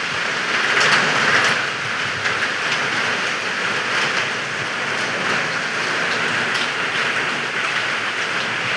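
Heavy monsoon rain falling in strong wind: a steady rushing hiss that swells briefly about a second in, with a few sharper drip taps.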